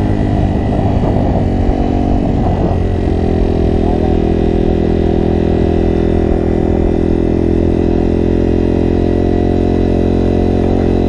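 Honda CRF230F dirt bike's air-cooled single-cylinder four-stroke engine running while riding along. Its pitch wavers over the first three seconds, then holds steady at an even cruising speed.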